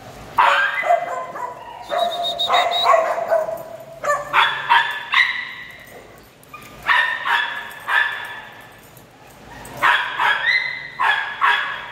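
Small dogs barking in high-pitched yaps, in several rapid bouts separated by short pauses.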